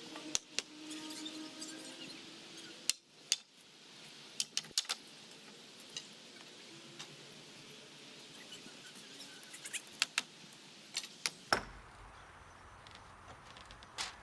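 Scattered, irregular sharp knocks and clinks of demolition work on a shop's walls: hammer blows and loose pieces of material knocking and rattling.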